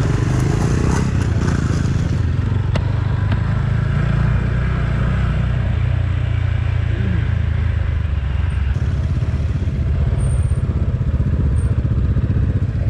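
Motorcycle engine running steadily, with a single sharp click about three seconds in.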